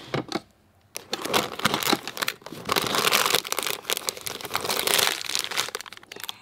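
Foil seasoning sachets crinkling and rustling as a hand rummages through a drawer packed with packets and pulls out a pair of them. Just before the rustling starts, about half a second in, there is a brief quiet moment.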